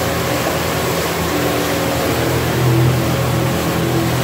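Loud, steady rush of wind and splashing water as the solar electric outrigger boat runs at full throttle, with a steady low hum beneath it.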